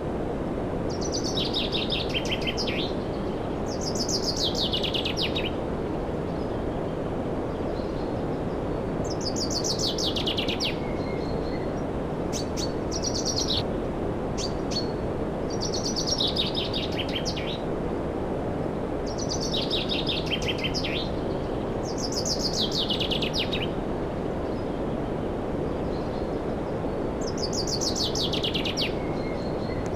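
A songbird singing short, rapid trilled phrases that fall in pitch, repeated every two to three seconds, over a steady rushing noise.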